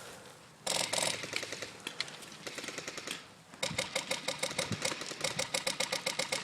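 Rapid mechanical clicking: a short burst just before a second in, then an even run of about ten clicks a second from the middle on.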